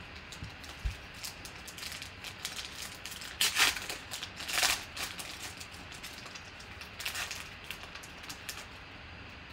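Foil wrapper of a 2018 Panini Select football card pack torn open by hand: two loud rips, a little over three seconds in and about four and a half seconds in, then lighter crinkling of the foil with a smaller rip near seven seconds.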